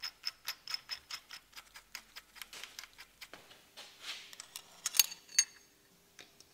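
Rapid light metal ticking, about five clicks a second, from steel parts worked by hand on an engine's crankshaft rear flange while the flywheel thread plates are fitted. Later comes a short rustle and two sharp metallic clicks close together.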